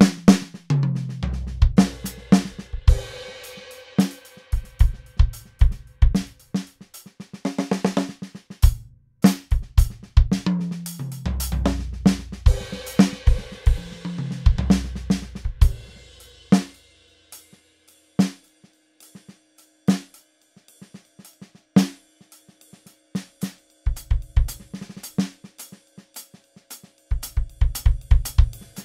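ATV aDrums Artist electronic drum kit played with sticks, sounding its 'Neo-RbV Hi' kit: bass drum, snare, toms, hi-hat and cymbals in grooves broken by quick fills. In the middle there is a sparser, quieter passage of single hits.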